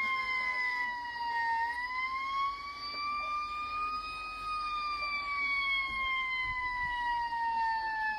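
Fire truck siren on a slow wail: its pitch dips about a second and a half in, climbs for a few seconds, then falls slowly.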